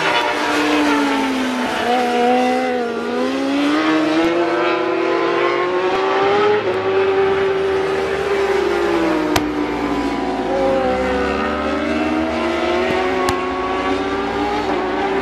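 Superbike racing motorcycles' engines at high revs around the circuit, several engine notes rising and falling and overlapping as riders accelerate, shift and brake.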